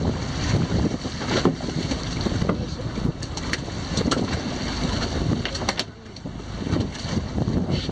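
Wind buffeting the microphone over choppy sea water sloshing against a fishing boat's hull, a steady low rumble with a few short sharp ticks scattered through it.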